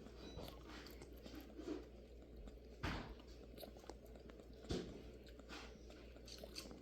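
Newborn Nigerian Dwarf goat kid suckling on a bottle nipple: faint, irregular sucking and smacking sounds. Two short, louder thumps come about three seconds in and again near five seconds.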